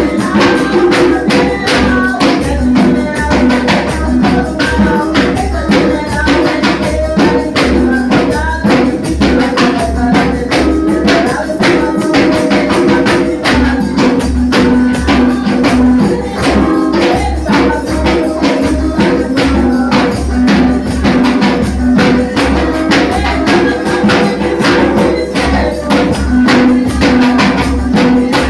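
Brazilian gospel band music: a tambourine keeps a fast, steady beat over sustained pitched instruments.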